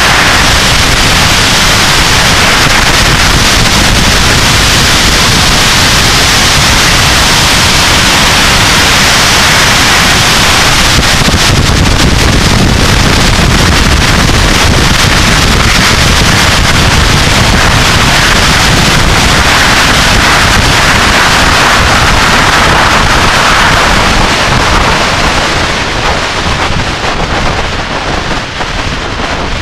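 Heavy wind noise rushing over the microphone of a camera mounted on a 1999 Yamaha YZF-R6 sportbike riding at road speed, drowning out the engine. The rush eases somewhat about five seconds before the end.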